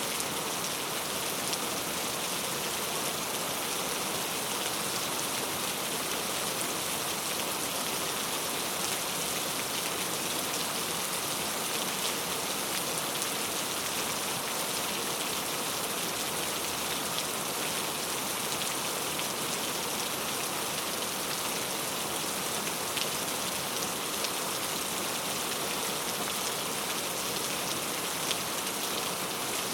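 Steady rain falling, an even hiss with scattered ticks of individual drops striking a surface.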